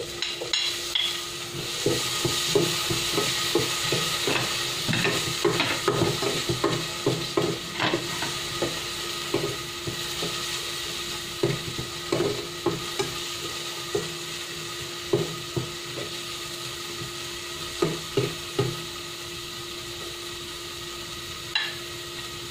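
Tomatoes sizzling as they're sautéed with garlic and onion in oil in an aluminium pot, with a metal spoon stirring and scraping against the pot in frequent clinks. The clinks and sizzle thin out in the second half.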